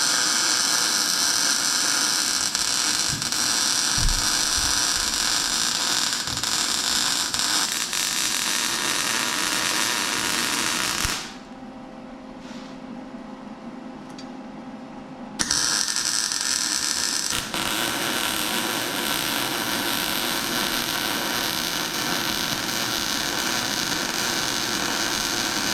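Continuous harsh metalworking noise on steel body-mount brackets. It comes in stretches with abrupt cuts, and is quieter for a few seconds about eleven seconds in.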